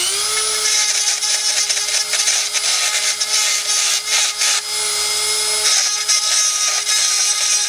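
Dremel rotary tool spinning up at the start and then running at a steady high pitch, grinding the collar off a 3-inch PVC street elbow, with a rough hiss of plastic being cut.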